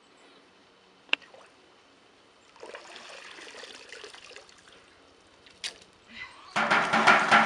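Wet mud sloshing and trickling as a shovel scoops liquid mud from a shallow pool, with a sharp knock about a second in. Near the end a much louder passage of music comes in.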